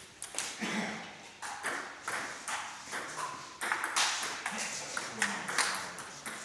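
Table tennis ball being struck back and forth in a rally, sharp clicks of ball on paddle and on the table at an irregular quick pace.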